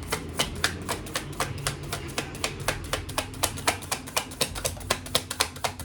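Tarot cards being shuffled by hand, a quick run of card clicks about six a second.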